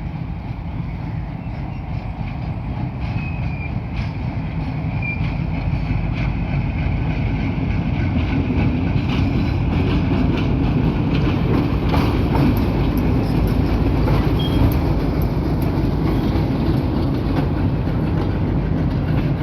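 Train running along the tracks: a steady low rumble that grows louder, with a few short high squeaks in the first seconds and wheels clicking over the rail joints from about nine seconds in.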